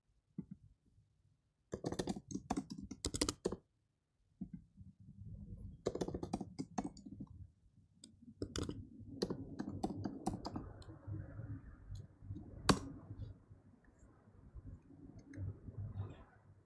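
Computer keyboard typing in several quick bursts of key clicks, with a single sharper click about thirteen seconds in, over a faint low background noise.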